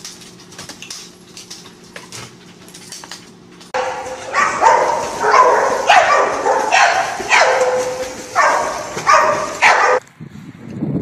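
A dog barking in a quick series of about a dozen short barks, each one falling in pitch, lasting about six seconds. Before it come a few quieter seconds of light clicks and knocks.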